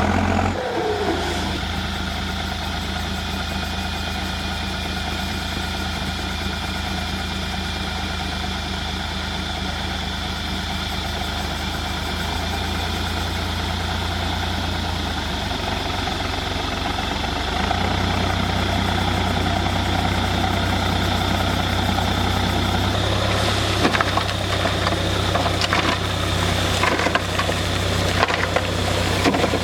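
Heavy diesel engine of a JCB 3DX backhoe loader running steadily while loading mud, its note shifting about halfway through. A few sharp knocks and clatter come near the end.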